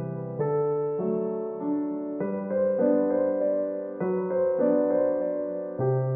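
Solo piano background music: a slow melody of struck notes, about two a second, over held low notes.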